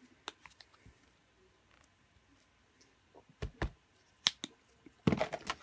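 Small clicks and taps of plastic paint-tube caps being opened and closed as acrylic paints are squeezed out, with a couple of louder knocks about three and a half seconds in, as tubes are set down on the table. Near the end, a burst of paper crinkling as the wax paper palette is handled.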